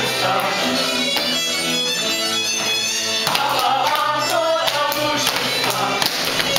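Hungarian folk dance music with the dancers singing along together, over sharp taps and slaps from the dance steps.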